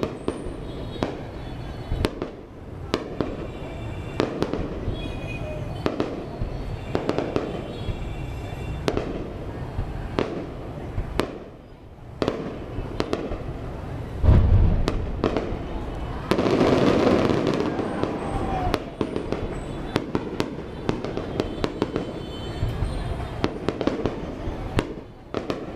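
Fireworks display: a steady run of bangs and pops, with a heavy boom about 14 seconds in, followed by a dense crackling burst lasting about two seconds.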